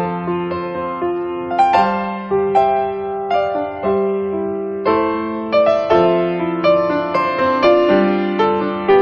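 Background music: a slow, gentle piano melody of single struck notes dying away over soft lower notes.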